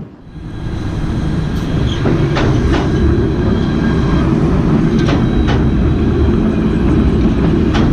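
Alstom Citadis tram running on rails: a steady rumble that builds up over the first second, with sharp clicks, mostly in pairs, every two to three seconds as the wheels cross rail joints.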